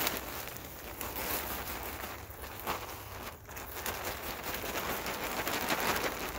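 Loose potting soil pouring out of a tipped plastic bag and pattering onto a mound of soil, a steady hiss that dips briefly twice around the middle.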